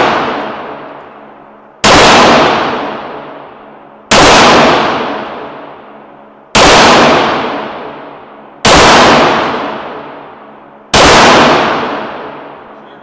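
9mm Beretta 92FS pistol fired in slow, deliberate single shots, five of them about two to two and a half seconds apart. Each shot rings out with a long echoing decay.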